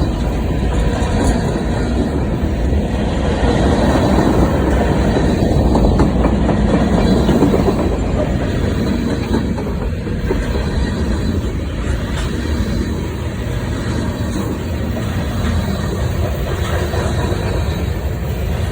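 BNSF manifest freight train rolling past, a steady, loud rush of steel wheels on rail, a little louder about four to eight seconds in.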